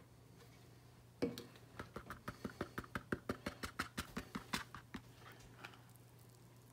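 A plastic gold pan holding water and black-sand concentrate being shaken and tapped by hand: one louder knock about a second in, then quick sharp taps at about five a second for some three seconds. This works the pan to settle the flour gold.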